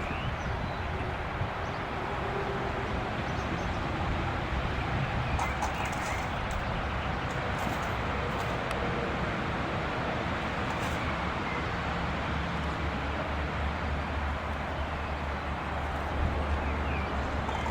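Steady distant rumble and hiss of an Airbus A380's jet engines on landing approach, the low rumble growing stronger near the end, with a few faint bird chirps.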